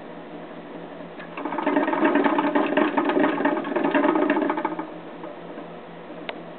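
A pet rat's exercise wheel spinning and rattling fast as a young rat runs hard in it. It is fainter for about the first second and a half, then runs loud for about three and a half seconds before dying down near the end.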